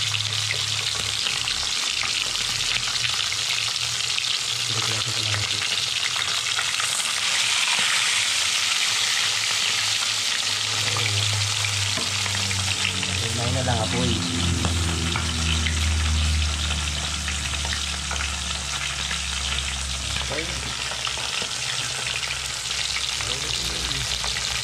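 Whole trevally frying in hot oil in a pan: a steady sizzle with small pops and spits of the oil.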